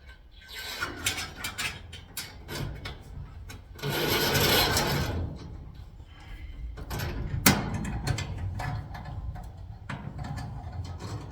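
Garage door lock hardware and its cable being handled: scattered clicks and knocks, a rubbing scrape lasting about a second and a half near the middle, and one sharp click a little later.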